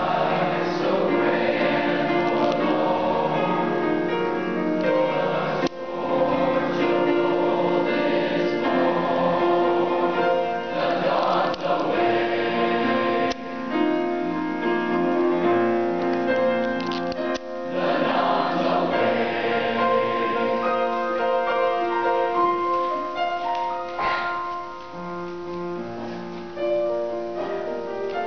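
Large youth choir singing a sustained choral piece with many voices together, growing quieter near the end.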